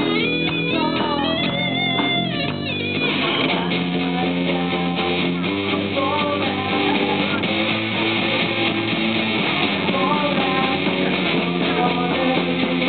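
Live rock band playing: bass guitar, guitar and drum kit. High sustained guitar notes for the first few seconds, then the full band comes in with a wash of cymbals and steady drum hits.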